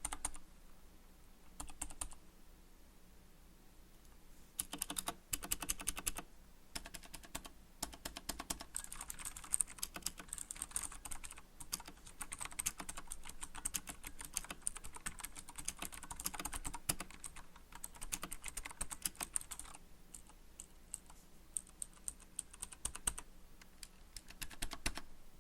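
Mechanical keyboard with Cherry MX switches being typed on, its keycaps fitted with rubber O-ring dampeners that soften the clack as each key bottoms out. A few single key presses, then from about four seconds in, fast typing in bursts with short pauses.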